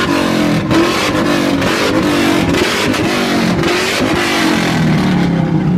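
Loud modified car exhaust with an engine being revved hard in repeated throttle blips, its pitch climbing and dropping again and again.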